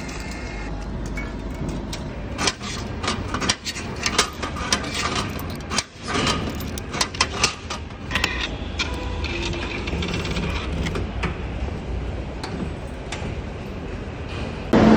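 Card ticket being fed through a metro ticket machine and fare gate: a quick run of sharp clicks and clacks from about two to eight seconds in, over a steady low station hum.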